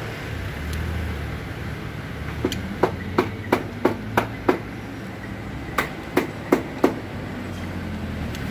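Sharp taps at about three a second: a run of seven, a short pause, then four more, like light hammering on a hard surface.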